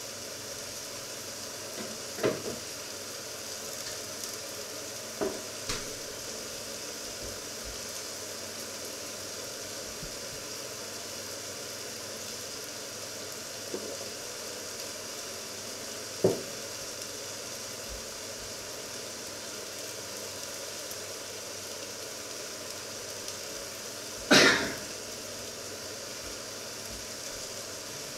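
Food frying in a covered pan on the stove: a steady sizzle, broken by a few short pops or knocks, the loudest about 24 seconds in.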